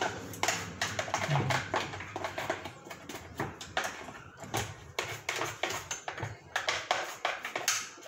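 Irregular clicks and knocks of a plastic electric fan stand being handled and moved about at a kitchen sink, several sharp taps a second.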